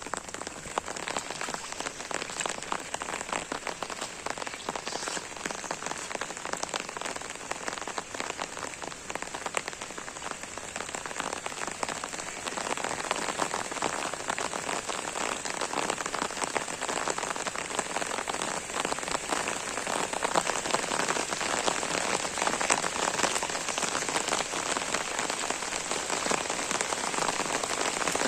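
Steady rain falling, a dense patter of many drops on a surface, growing a little heavier from about halfway through.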